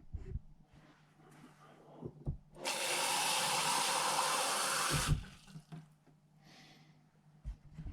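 Water running steadily into a container, starting and stopping abruptly after about two and a half seconds, with a few light knocks of handling around it.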